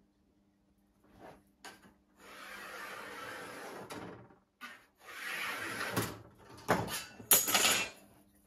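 Sheet metal being handled on a workbench: two long scraping, rubbing strokes, then several sharp metallic clanks and rattles near the end as the sheet is lifted and flexed.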